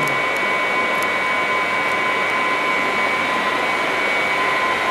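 Hatchery water pumps and equipment running: a steady rushing drone with a constant high whine, unchanging throughout.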